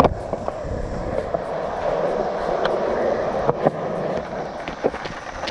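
Skateboard wheels rolling over concrete: a steady rolling rumble with a few short clicks along the way.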